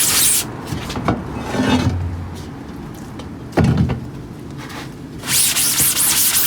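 Scrub brush rubbing over the wet mesh of a screen-printing screen, stopping about half a second in. Two knocks follow, about a second and three and a half seconds in, and the scrubbing starts again about five seconds in.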